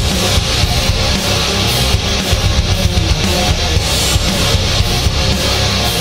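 Loud outro music with driving, distorted electric guitar in a heavy rock style.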